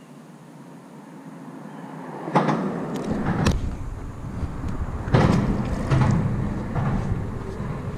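Knocks and rustling from handling as a bluegill is carried to the water's edge, then a small splash as the fish is dropped back in about five seconds in, with low wind-like rumble on the microphone.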